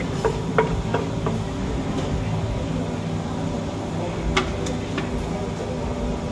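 Wooden pestle pounding som tam (papaya salad) in a clay mortar, about four strokes in the first second and a half, then stopping; a few sharper clacks a little past halfway, over a steady background hum.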